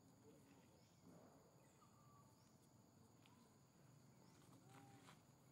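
Near silence: faint outdoor ambience with a steady high whine and a few faint, short pitched calls.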